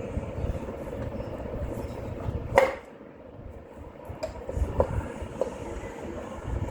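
Hand tools working on metal engine parts: one loud, sharp metallic clank with a brief ring about two and a half seconds in, then a few lighter clinks, over low rumbling handling noise.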